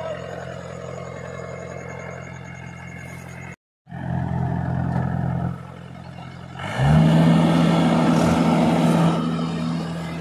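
A four-wheel-drive tractor's diesel engine running steadily, with a brief dropout in the sound a little past a third of the way in. About two-thirds of the way in, the engine revs up quickly and holds at high revs, its loudest point.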